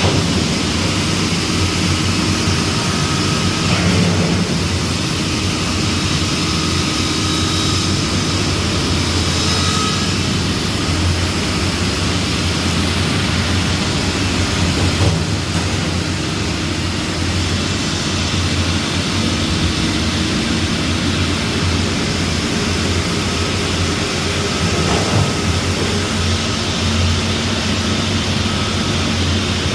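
A heavy engine running steadily: a continuous low drone with a faint thin whine that comes and goes above it.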